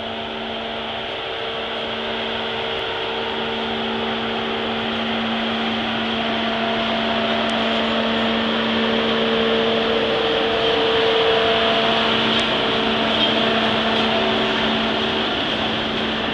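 Hitachi electric rack locomotives moving slowly at close range, a steady machine drone with a few held humming tones over a hiss. It grows louder as the locomotives draw nearer.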